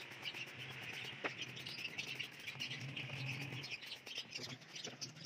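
Many small birds chirping, a dense, continuous run of short chirps.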